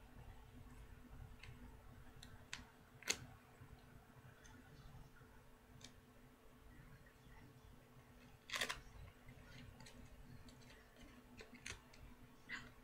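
Duct tape and tin foil being handled: sparse faint crinkles and clicks, with one sharp click about three seconds in and a short crackle about two-thirds of the way through.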